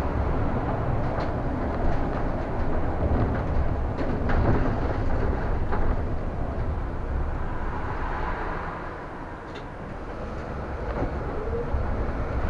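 City bus running, heard from inside: a steady engine and road rumble with scattered rattles and clicks. It eases off about nine seconds in, then builds again with a rising engine note near the end.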